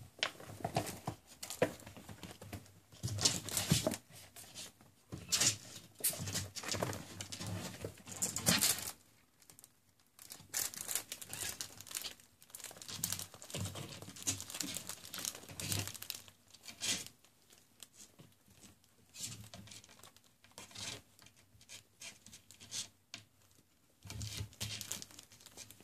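Kittens play-wrestling on blankets and bedding: irregular rustling, crinkling and scratching as they tumble and scrabble over the fabric.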